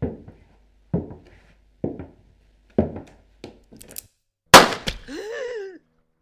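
Sound effects: four heavy thuds about a second apart, a few light clicks, then a loud sharp bang, followed by a short wavering pitched sound that bends up and down.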